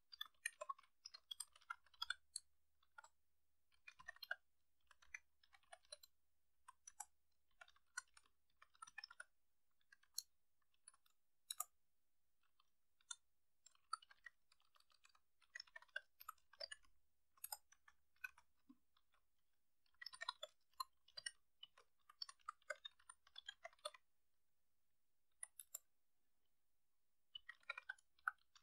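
Typing on a computer keyboard: runs of quick key clicks broken by short pauses, with a longer pause of a few seconds near the end.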